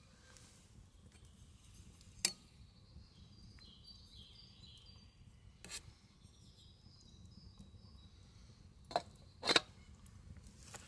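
Sparse sharp clinks of camp cookware and utensils being handled: one about two seconds in, one near six seconds, and two close together near the end, the last the loudest. Faint high birdsong chirps run underneath.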